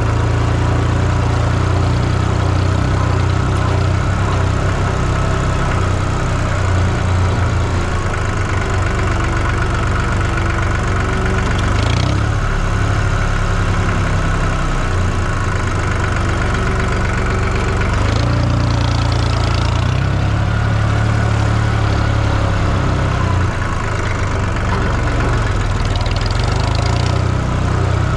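An engine running steadily at an even speed, with a deep low rumble that holds unbroken.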